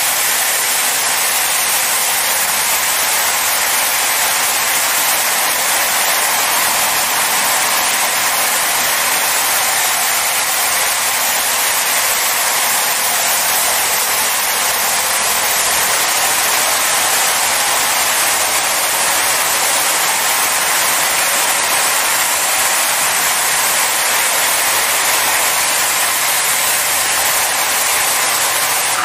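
Leisuwash S90 touchless car wash machine's high-pressure rinse: water jets hissing steadily onto a car's body.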